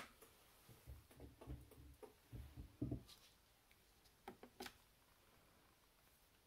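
Faint clicks and soft thumps of a gloved finger pressing the push-buttons on a Bosch dishwasher's control panel, with two sharp button clicks about four and a half seconds in. Otherwise near silence.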